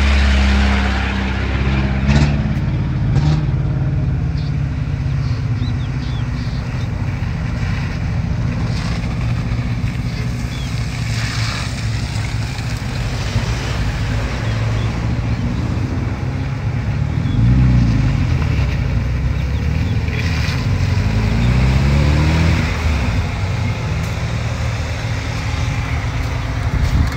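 Off-road vehicle engine running at low speed over a muddy, rutted dirt track, with steady engine hum and tyre and road noise. The revs climb and fall back a little past the middle, and again a few seconds later.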